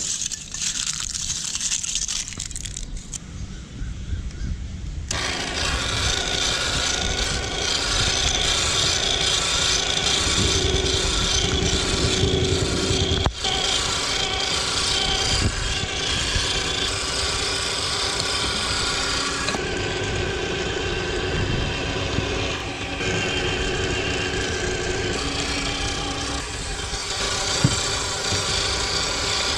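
Meat grinder crushing foil-wrapped chocolate coins: crackling of foil at first, then from about five seconds in a steady machine drone with a mix of fixed tones, which shifts in tone a few times.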